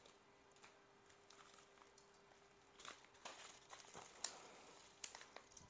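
Faint rustling and crinkling of plastic bubble mailers handled by gloved hands. It starts nearly three seconds in, with a couple of sharp ticks near the end.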